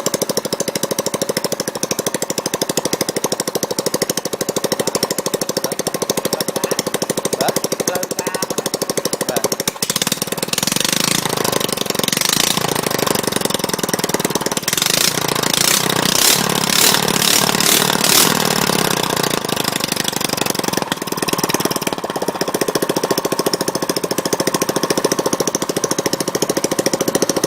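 Small gasoline engine running after a repair, with a fast, even firing beat. About ten seconds in it grows louder and busier for around ten seconds, then settles back.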